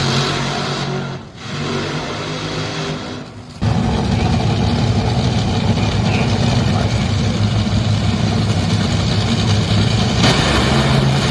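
Top Fuel dragster's supercharged nitromethane V8 running. It comes in suddenly and loud about three and a half seconds in, then holds steady.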